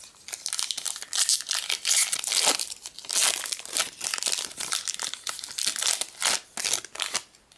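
Foil Pokémon booster pack wrapper crinkling and tearing as it is handled and opened, a dense crackle that thins out near the end.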